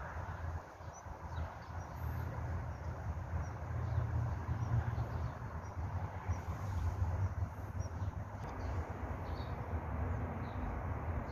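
Outdoor ambience: wind rumbling unevenly on the microphone over a steady hiss, with faint, short, high chirps now and then.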